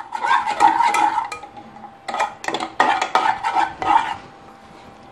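Spoon scraping and clinking against the bottom of an aluminium pan, stirring sugar as it melts dry over the flame into caramel, with no water added. The stirring comes in quick strokes and stops about four seconds in.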